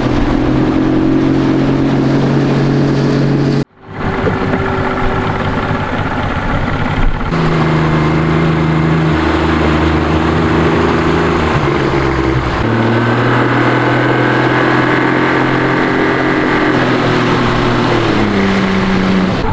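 Yamaha 50 hp outboard motor running with the boat under way, its engine note stepping to a different pitch several times as the throttle changes. The sound cuts out completely for a moment about four seconds in.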